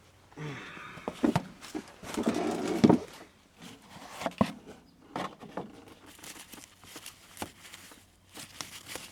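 Packing material rustling and crinkling as objects are handled and lifted out of a box, loudest in the first three seconds, followed by scattered clicks and light knocks.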